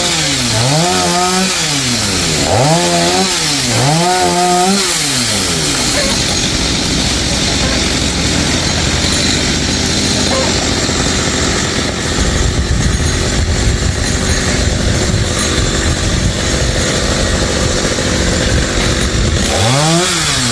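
Gasoline chainsaw revved up and down about four times, then running steadily under load as it cuts through a tamarind tree, with a rise and fall of revs again near the end.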